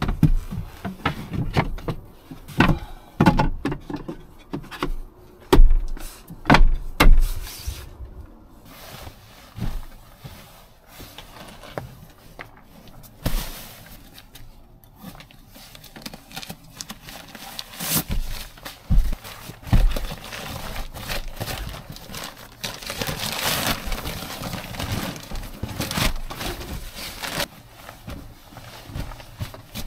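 Knocks and thumps of wooden bed boards and gear being set down in a pickup truck bed, many in quick succession at first. About three-quarters of the way through comes a longer rustle of a nylon sleeping bag and bedding being spread out.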